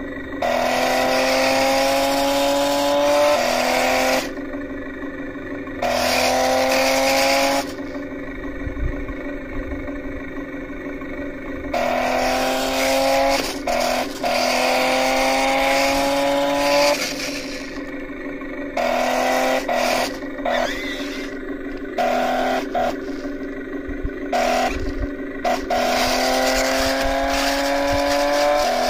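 Toy RC stunt car's twin electric drive motors whining in about nine short runs, each one to three seconds long, stopping and starting. In each run the whine climbs slightly in pitch, with a scraping hiss from the tyres.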